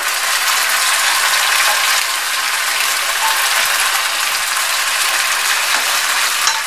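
Hot oil in a nonstick wok sizzling with a steady crackle as white sauce is poured over the pasta and sautéed carrots and capsicum.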